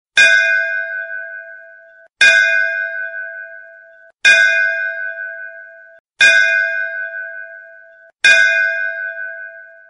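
Temple bell struck five times, about every two seconds, each strike ringing out with a clear metallic tone that dies away and stops abruptly just before the next.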